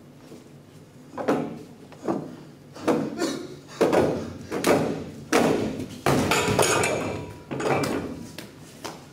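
A run of thuds and knocks, roughly one a second, each dying away briefly. A longer, drawn-out knocking sound comes about six seconds in.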